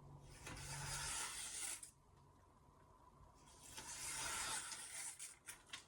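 Knife blade drawn across a Shapton Glass whetstone: two long scraping strokes about two seconds apart, followed by a few light clicks near the end.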